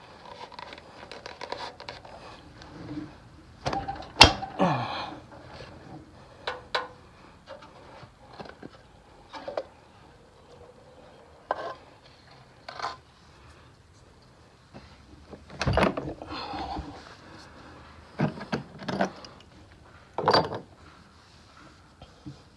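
Scattered metallic clicks, clanks and scrapes of hand work on a VW Beetle's air-cooled flat-four engine as its valve cover is pulled off, with a couple of sharper knocks.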